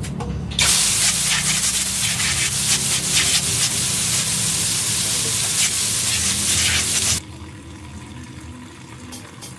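Water gushing hard out of an opened plastic tap on a PVC pipe and splashing onto the ground, a steady loud hiss. It starts suddenly just after the tap is opened and cuts off sharply about seven seconds in.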